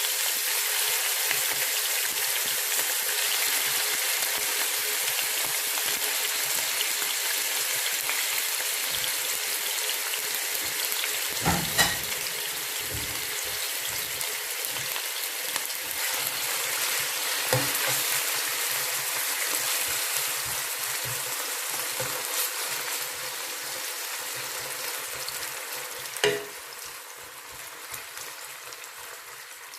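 Chicken pieces frying in hot oil in a pan: a dense, steady sizzle that slowly dies down, with a few short knocks against the pan along the way.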